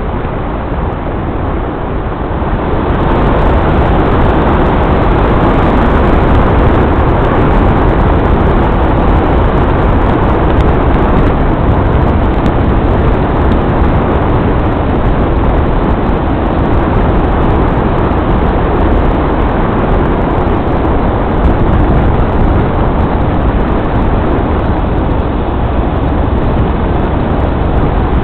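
Steady road and wind noise of a vehicle on the move, rising about three seconds in and then holding.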